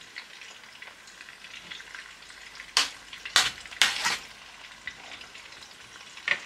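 A ladle clattering and scraping against a stainless steel soup pot while tom yum is stirred, a few sharp strikes about three to four seconds in and again near the end, over a steady faint sizzling crackle of cooking.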